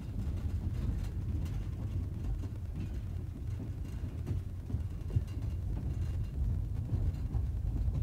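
Steady low rumble with faint light knocks scattered through it.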